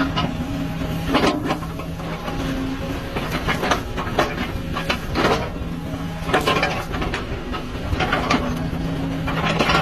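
Machinery running with a steady hum, overlaid by frequent irregular clanks and clicks.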